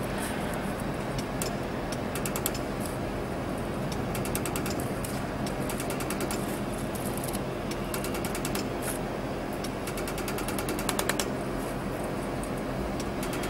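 Pulsed laser welder firing in rapid runs of sharp ticks as it spot-welds a stainless steel letter face to its side strip, over a steady machine hum.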